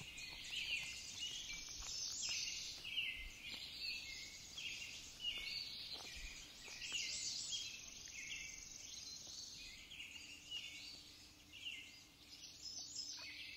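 Birds chirping: a long series of short, falling chirps over a faint background hiss.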